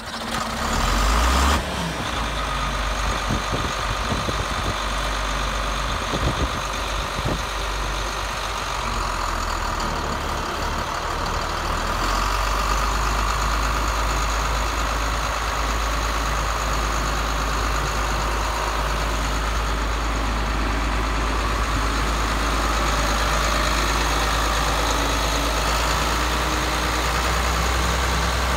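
John Deere 4850 tractor's turbocharged six-cylinder diesel engine running steadily, with a louder burst in the first second or two. About twelve seconds in the engine grows louder and deeper as the tractor is driven off under throttle.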